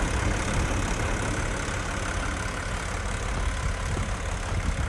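Volvo L90G wheel loader's diesel engine idling steadily.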